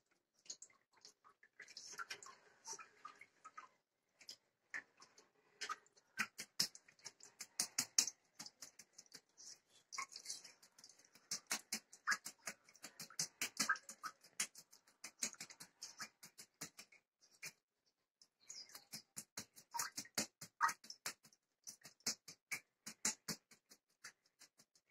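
Hands squeezing and patting a soft ball of freshly made butter, giving a quick, uneven run of small wet clicks and squelches with a brief pause partway through.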